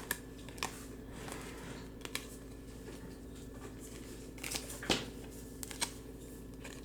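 Faint clicks and slides of Topps Chrome trading cards being handled and turned over, a few scattered ticks over a steady low hum.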